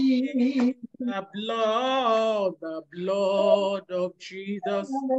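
A woman's voice singing a slow worship chorus in long, held notes, one line after another.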